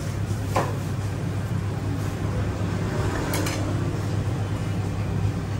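Steady low background hum with a few brief clinks, about half a second in and again past three seconds, of a metal spoon against a ceramic plate.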